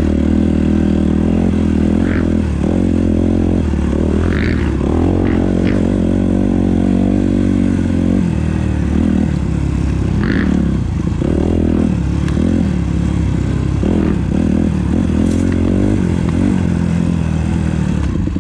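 Dirt bike engine ridden on a muddy trail, revving up and falling back again and again as the throttle is worked.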